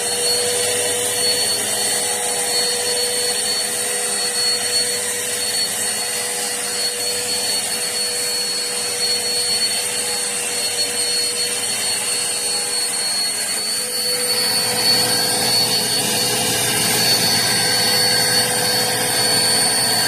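Eureka PowerSpeed bagless upright vacuum cleaner running steadily, its motor noise carrying a constant high-pitched whine, a little louder in the last few seconds.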